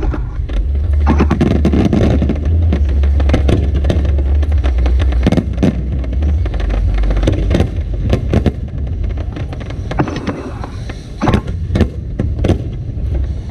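Aerial fireworks bursting in quick succession: many sharp bangs and crackles over a continuous deep rumble.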